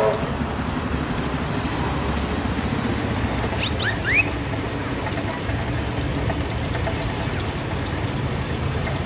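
Steady low rumble of engines running, with a bird chirping briefly in a few quick rising notes about four seconds in.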